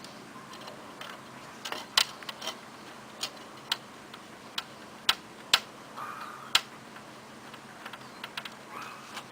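Irregular sharp clicks and knocks of a cedar tomato cage being put together by hand: wooden cross members and legs bumping and a regular screwdriver turning screws into pre-drilled holes.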